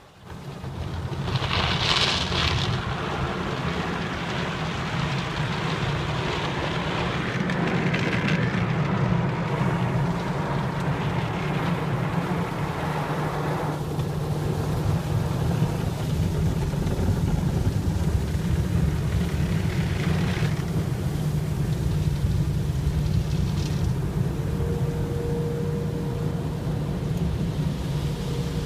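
Automatic car wash heard from inside the car's cabin: water and soapy foam spraying and streaming over the windshield, with a steady low hum underneath. A louder hiss of spray comes about two seconds in, and a faint steady tone joins near the end.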